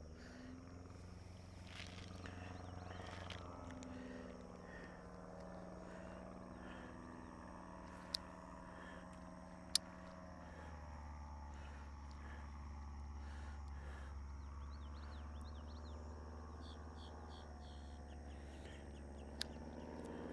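A steady low engine hum whose pitch slowly rises and falls, like vehicles passing at a distance. Three single sharp clicks come through it, and there are faint short bird chirps near the end.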